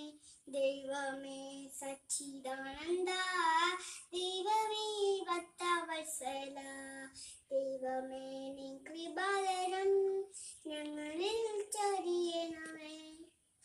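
A young girl singing a prayer song solo, in phrases of a few seconds with short breaks for breath; the song ends just before the close.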